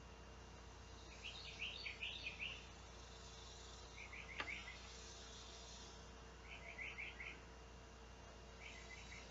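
Faint chirping outdoors: four short phrases of rapid pulses, about two seconds apart, over a low steady hum, with a single click near the middle.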